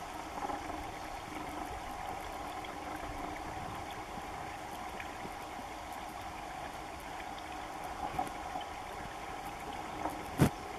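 Steady outdoor background hum with no distinct events, and one sharp click near the end.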